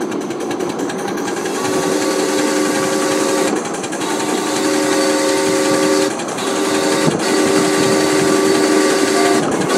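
A 1.5-inch-scale live steam locomotive's chime steam whistle blowing four blasts, long, long, short, long, which is the pattern of the grade-crossing signal. The locomotive's running clatter carries on underneath.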